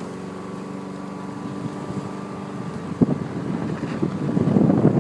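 Subaru flat-four engine running steadily. About three seconds in, a louder rough, gusty rushing of wind on the microphone comes in over it.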